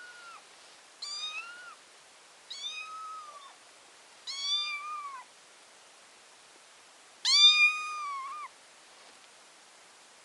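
Ginger kitten meowing: a string of short, high meows about a second and a half apart, then after a pause a longer, louder meow about seven seconds in.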